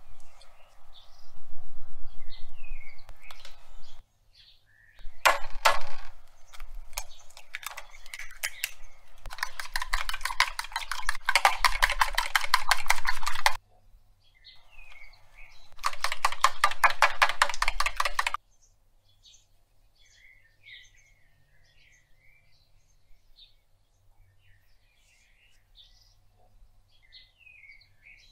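Kitchen utensil sounds: a few clicks and knocks, then two long stretches of fast, even clicking, the second shorter than the first. Birds chirp faintly in the quieter stretches.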